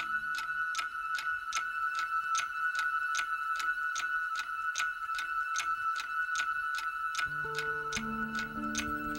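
Electronic soundtrack music built on a clock-like ticking, about two and a half ticks a second over a held high tone. Low sustained chords come in about seven seconds in.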